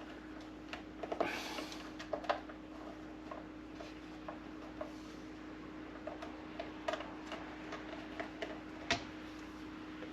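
Faint, irregular small clicks and taps of a screwdriver working small screws out of a coffee maker's housing, with one sharper click near the end, over a faint steady hum.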